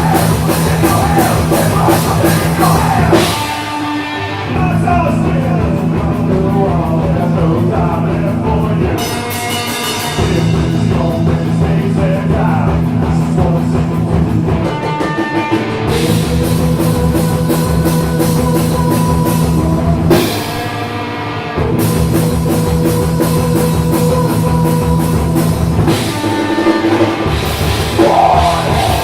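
A live rock band playing loud, heavy rock with a drum kit. The riffs are broken by short drops about every five or six seconds.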